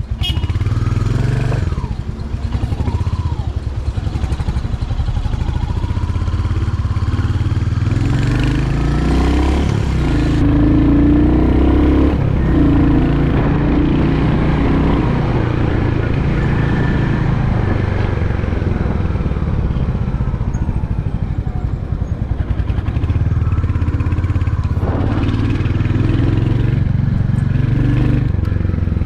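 Royal Enfield Hunter 350's single-cylinder engine running while the bike is ridden, its pitch rising and falling several times with throttle and gear changes.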